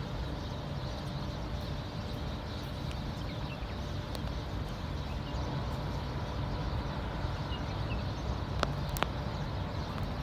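Birds in a tree giving faint, scattered short chirps over a steady low background rumble. Two sharp clicks come near the end.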